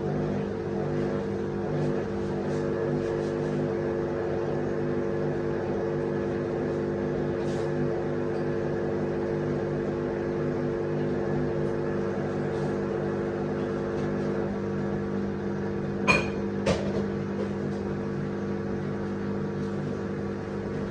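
Beko front-load washer-dryer running with a steady hum near the end of a wash-and-dry programme. Two sharp clicks come about sixteen seconds in.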